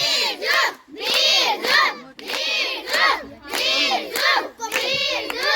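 A group of children shouting a two-beat cheer, repeated over and over in a steady rhythm.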